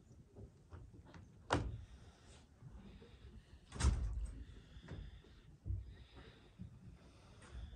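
Scattered knocks and thumps in a quiet room: two sharp ones about a second and a half and about four seconds in, then a few softer ones.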